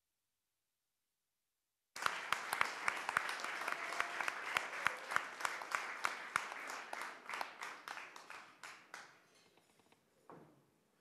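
Audience applauding. After two seconds of dead silence, the clapping starts suddenly and loudly, then thins out and dies away over several seconds, with one faint thump near the end.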